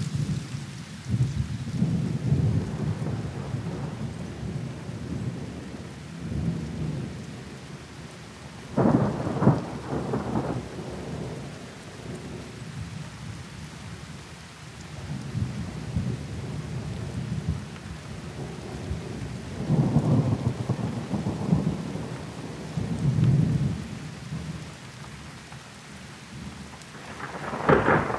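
Thunderstorm: steady rain hiss with several low rolls of thunder that swell and fade. The sharpest roll comes about nine seconds in, and another builds near the end.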